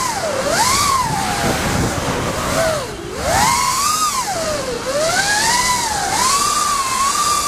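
A racing quadcopter's brushless motors and five-blade props whining, recorded from the onboard camera, the pitch repeatedly swooping up and down with the throttle and dipping lowest about three seconds in, over a steady rush of wind noise.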